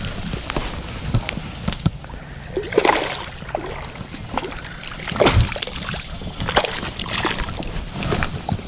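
Hooked largemouth bass splashing and thrashing in shallow water as it is fought and reeled in, a few irregular splashes.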